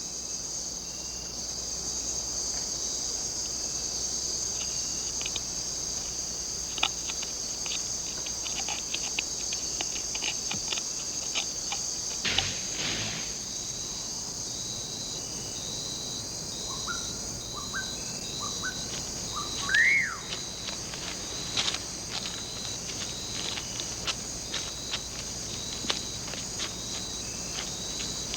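Tropical rainforest insect chorus: a steady high-pitched drone with scattered clicks. About two-thirds of the way through comes a short run of rising chirps ending in one louder upward whistle.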